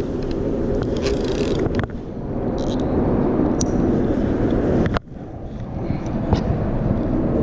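Steady rumble of road traffic on the bridge deck overhead, echoing under the span. It drops away abruptly about two and five seconds in and comes straight back.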